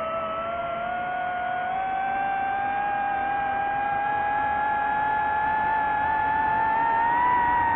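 DJI FPV quadcopter's motors and propellers whining in flight, the pitch rising slowly and the sound getting a little louder as the throttle comes up.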